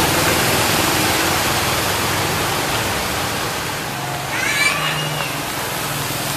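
Steady hiss of heavy rain and water on a flooded street, with a brief high-pitched voice call about four and a half seconds in.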